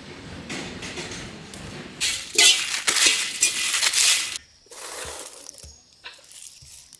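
A metal spatula scraping and stirring dry whole spices (cinnamon bark, cloves, bay leaves, cardamom) around a black iron wok as they are dry-roasted for biryani masala. The loud scraping and rattling runs for a couple of seconds mid-way, then gives way to a few soft knocks.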